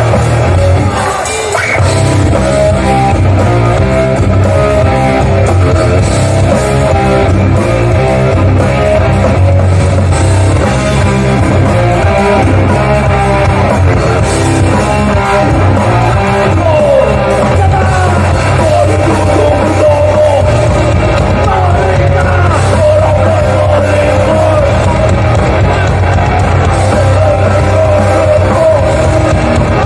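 Hardcore punk band playing live and loud, distorted guitars and heavy drums with shouted vocals. The sound dips briefly about a second in, then runs on steadily.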